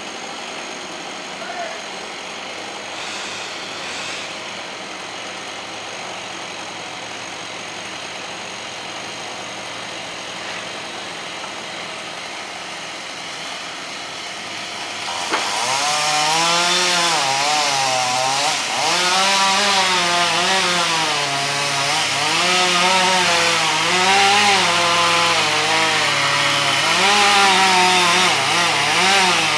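A steady, fairly quiet engine hum, then about halfway through a chainsaw comes in loudly and keeps running, its engine pitch rising and falling over and over as it cuts through a dead tree.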